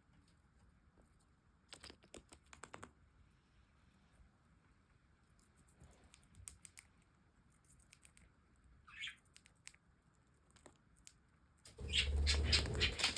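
Budgerigar making small clicks and taps in clusters, with one short rising chirp about nine seconds in, then a louder flurry of clicking and rustling near the end.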